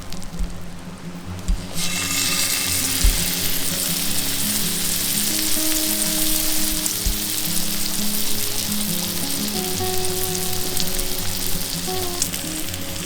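Meat sizzling on a hot campfire grill, the sizzle starting suddenly about two seconds in and then holding steady.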